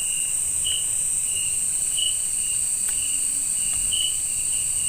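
Chorus of crickets and other night insects: a steady high-pitched drone with short chirps repeating about twice a second.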